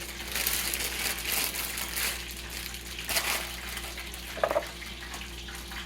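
Rustling and crinkling as scraps and waste are gathered up off a kitchen counter, in a few irregular bursts, over chicken sizzling in oil in the background.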